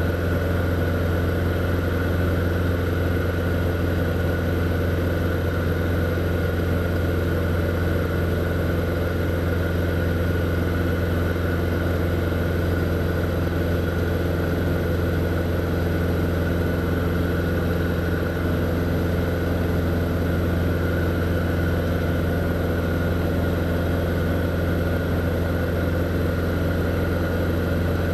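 Single-engine light aircraft's engine and propeller running steadily in level flight, a loud constant drone heard from inside the cockpit.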